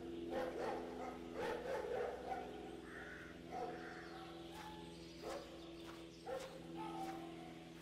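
Short whimpering cries, repeated every second or so, over a steady low drone, with a few sharp clicks in the second half.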